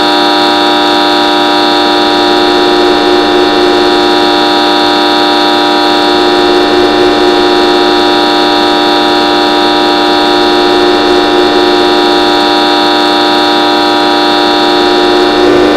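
Loud, steady, horn-like drone made of many held tones sounding together, unchanging in pitch, with a slight swell near the end.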